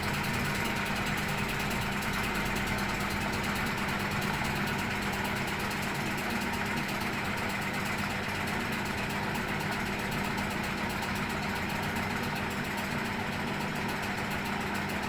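Top-load washing machine running with its motor engaged: a steady mechanical hum with a constant low drone.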